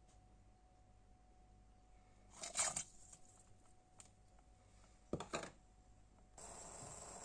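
Two brief handling noises of kitchen preparation, about two and a half seconds apart. Near the end a steady hiss starts abruptly.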